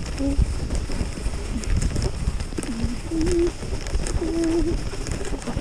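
Skis sliding over groomed snow, a steady low rumble with scattered scrapes. A few brief low wavering tones sound over it, about half a second in and again around three and four and a half seconds.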